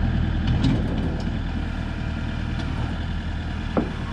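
Tractor engine running steadily at low revs, with a few light clicks and a short knock near the end.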